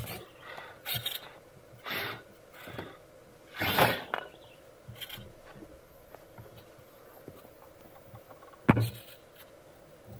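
Radio-controlled rock crawler scrabbling over rocks: a series of short scraping, crunching bursts as its tyres and chassis work across stone, with one sharp knock late on.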